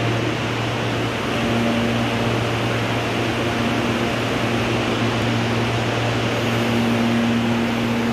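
Stationary CPTM Series 8500 electric train humming at the platform: a steady low drone under an even rushing noise from its onboard equipment, with a higher hum that swells and fades twice.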